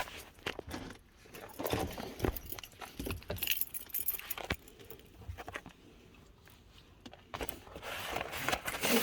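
Scattered light clicks and rustles of things being handled, with a quiet stretch in the middle and more rustling near the end.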